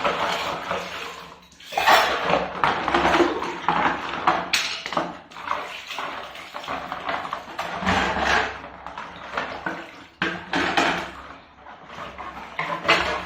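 Dishes and pots being washed by hand in a sink: irregular clattering of dishware with water splashing.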